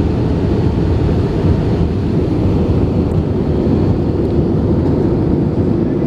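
Steady low roar inside the cabin of an Airbus A319 airliner on approach: engine and airflow noise heard from a passenger seat.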